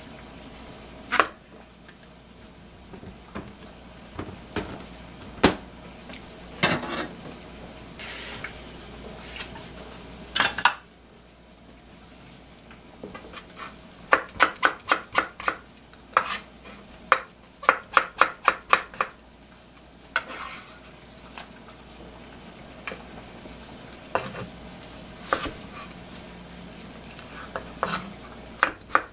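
Kitchen knife slicing eggplant on a bamboo cutting board, each cut ending in a knock on the board. Scattered single cuts come first, then quick runs of about four cuts a second in the second half.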